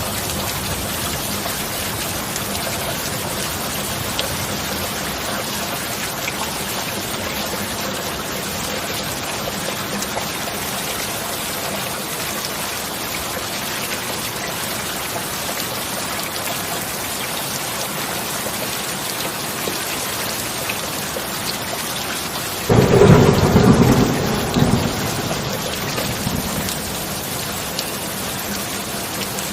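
Steady rain falling throughout. Near the end a thunderclap breaks in suddenly and rumbles for a few seconds, then fades back under the rain.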